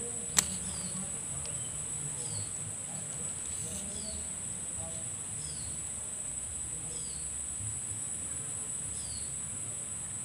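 Steady high-pitched insect drone, with a short falling chirp repeating about once a second and a single sharp click about half a second in.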